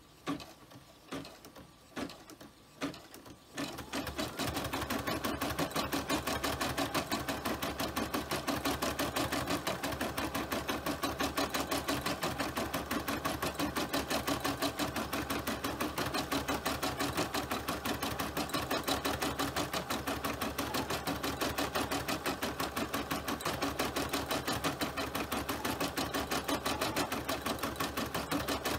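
Computerised embroidery machine starting a stitch-out: a few separate slow clicks as it begins, then from about four seconds in it settles into a rapid, even stitching rhythm, with the needle running fast as the hoop moves under it.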